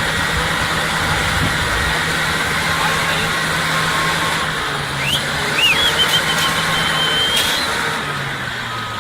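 Diesel engine of heavy earthmoving machinery, an excavator or bulldozer, running steadily under load. Its note drops a little about halfway through and again near the end. A high whistle sounds briefly between about five and seven and a half seconds in.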